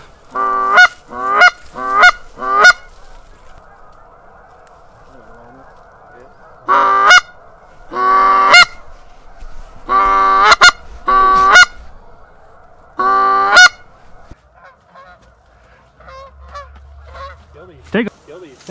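Loud, close goose honks in short bursts: a quick run of about five at the start, then single and double honks every second or two, typical of a hunter's goose call working an incoming flock. Underneath, a distant flock of Canada geese keeps up a faint, continuous chorus of honking, which fades out after the last loud honk.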